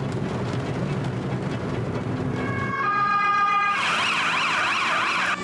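Emergency-vehicle electronic siren: a steady tone that switches about three and a half seconds in to a fast rising-and-falling yelp, several sweeps a second. Under the first half there is a low rumble.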